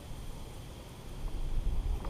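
Wind buffeting the microphone: a low rumble over a steady hiss, growing stronger about a second in.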